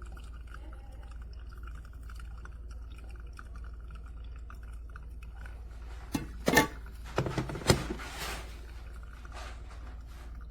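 A short run of sharp knocks and clinks, about six to eight seconds in, over a steady low hum.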